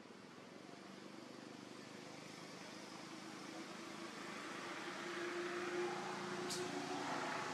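A motor vehicle passing at a distance: a steady low hum over background noise that grows louder over the last few seconds, with one short sharp click near the end.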